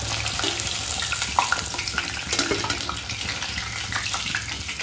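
Paneer cubes frying in hot oil in a wok: steady sizzling and crackling, with a few clinks and scrapes of a perforated metal skimmer against the pan as the fried cubes are lifted out.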